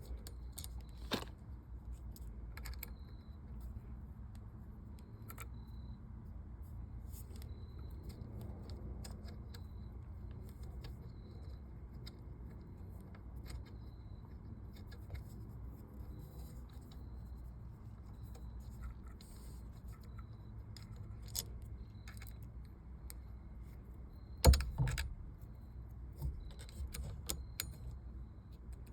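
Small metallic clicks and clinks of hand tools and screws as a steering wheel is unbolted from its short hub, over a low steady rumble. Near the end comes a louder cluster of knocks.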